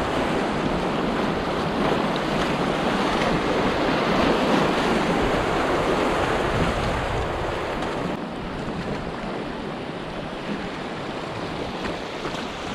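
Fast, muddy floodwater of a small creek rushing over riffles and around logjams, heard from a paddleboard riding down it. A steady, loud rush that eases a little about eight seconds in.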